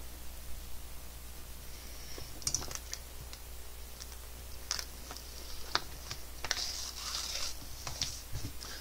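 Fingers picking and tearing at a tightly sealed paper envelope: scattered small clicks and scratches with brief rustles of paper.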